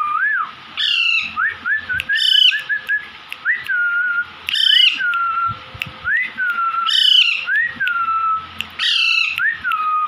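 Young Alexandrine parakeets calling, five short loud calls about every two seconds. Between them runs a repeated whistled note that rises, then slides down and holds.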